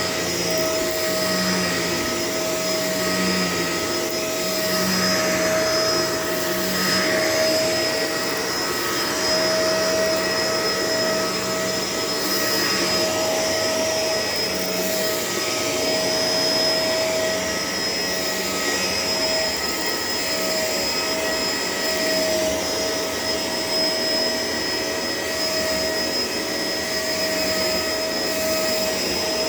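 Shark LA702 vacuum cleaner running steadily, its motor giving a constant whine over a rushing noise.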